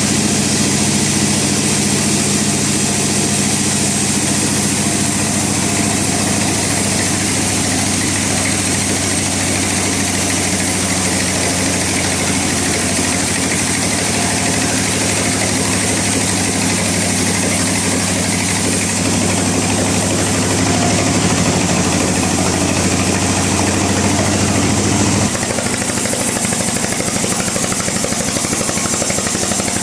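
Bandsaw mill running and sawing through a log: a steady motor hum under a continuous hiss of the blade cutting wood. About 25 seconds in the low hum changes abruptly.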